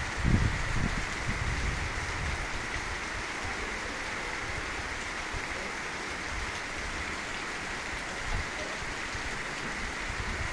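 Heavy rain falling steadily in a downpour, with gusts of wind buffeting the microphone in a low rumble, strongest about the first second.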